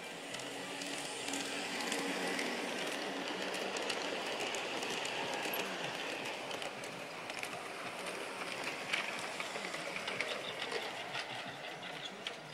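LGB G-scale model trains running on the track: a steady rolling rumble of wheels and motors that swells over the first couple of seconds as a train passes close. Short clicks of wheels over the rail joints come thicker in the second half, as a freight train rolls by.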